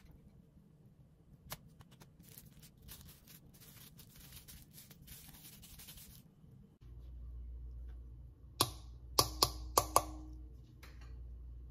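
Cling film crackling and rustling as it is folded around a block of pastry dough. Later, a plastic measuring spoon taps sharply against the rim of a stainless steel mixing bowl about five times in quick succession; these taps are the loudest sounds.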